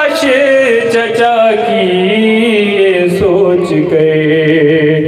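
A male noha reciter singing solo into a microphone, holding one long, wavering note that slowly falls in pitch.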